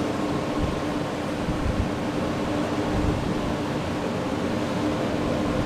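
Steady machinery hum: a constant drone over an even rushing noise, with no change in pitch or level.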